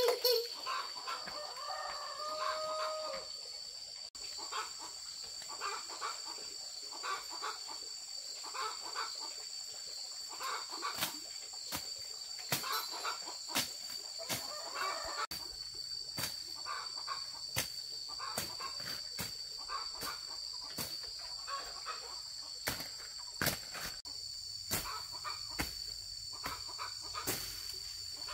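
Chickens clucking, with a steady high-pitched drone behind them and scattered sharp knocks that come more often in the second half.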